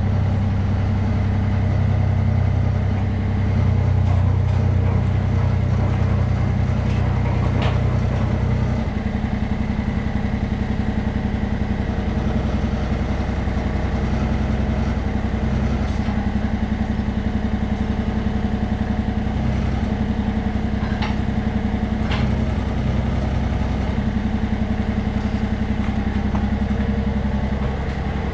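Small diesel engine of a Yanmar mini-excavator running steadily, still cold after a cold start, while the hydraulics work the boom and bucket. The engine note lightens slightly about nine seconds in, and a few sharp knocks come through, once near eight seconds and twice around twenty-one seconds.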